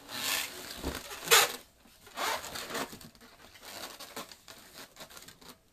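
Latex 360 modelling balloons being twisted together by hand: rubber rubbing and squeaking in a run of scrapes, the loudest about a second and a half in, then softer rubbing.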